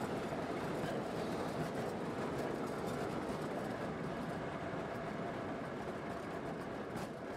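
Ultralight plane's engine running steadily, mixed with wind noise, on landing at a dirt airstrip.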